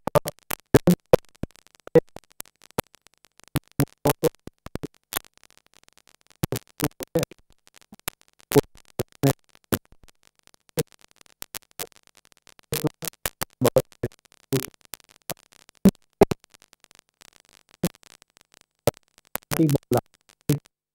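Broken-up audio from a remote guest's video link: irregular crackles and clicks with clipped scraps of voice, as the connection drops in and out. The guest's voice is not coming through clearly.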